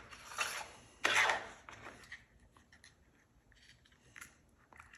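A small plastic spacer stuck on with double-stick tape being pried and peeled off a clock's quartz movement: a short scraping rasp about a second in, then faint clicks and rubs as the small parts are handled.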